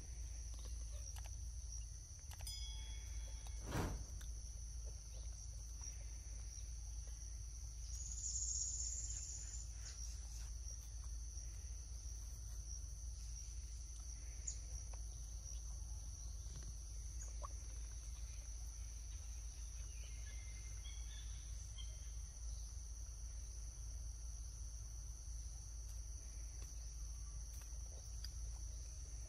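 Steady high-pitched drone of insects over a low hum, with a couple of sharp clicks in the first few seconds and a few short bird-like chirps about twenty seconds in.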